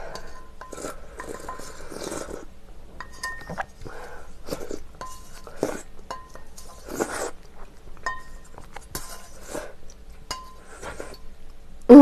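Someone gulping ramen broth straight from a tipped-up stainless steel bowl, swallowing about once a second. The metal bowl clinks and rings lightly now and then.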